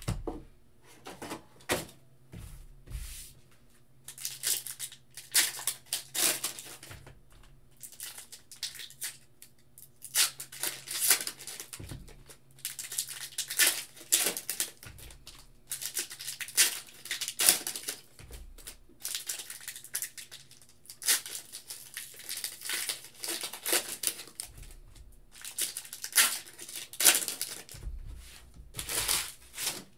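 Foil trading-card pack wrappers crinkling and tearing as packs are handled and ripped open, with cards being thumbed through, in short irregular crackling bursts.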